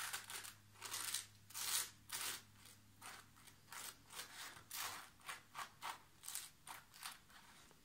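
A knife spreading jam on toast: repeated short scraping strokes across the toast's crust, about two or three a second.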